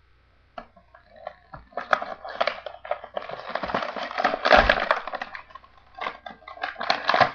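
Toy packaging being torn and pulled open by hand, plastic and card crinkling and crackling in irregular spells. It is loudest about halfway through and again near the end.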